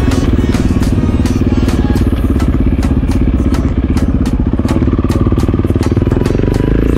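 KTM enduro motorcycle engine running steadily while being ridden at low speed, its pitch rising near the end as the bike accelerates.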